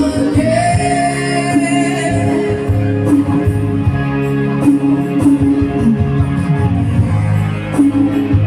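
Band music: a vocalist singing a held, gliding melody over guitar and a steady low accompaniment.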